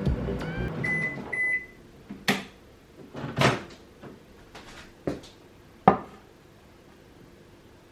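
Microwave oven running with a low hum, beeping twice about a second in, then falling quiet. It is followed by four sharp clunks, the last the loudest, typical of the door latch popping open and the door and dish being handled.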